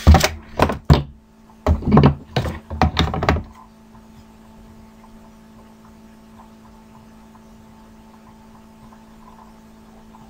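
A quick series of loud thumps and knocks for about three and a half seconds, then a steady low electrical hum with a few faint fixed tones.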